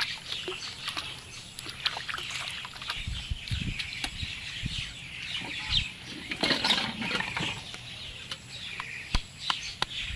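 Water splashing and sloshing in shallow water, with birds chirping throughout. Near the end come a few sharp knocks as snails are cracked on a wooden block.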